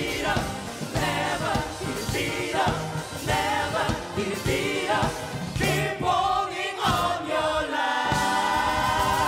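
Live pop-rock band with several singers singing together over guitars, keyboards and drums, the voices settling into a long held note with vibrato near the end.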